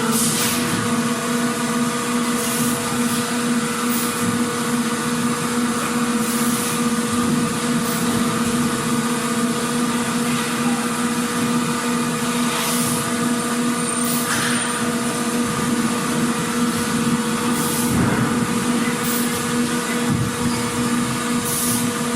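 Factory ambience: a steady machinery hum on two constant pitches over a dense background din, with brief hisses now and then.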